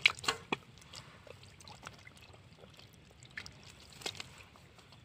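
Water splashing and sloshing in short bursts: a quick cluster of splashes in the first half second, then a few scattered splashes.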